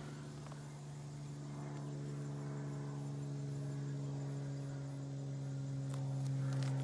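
A steady low hum with several even overtones, growing a little louder toward the end, with a few faint clicks.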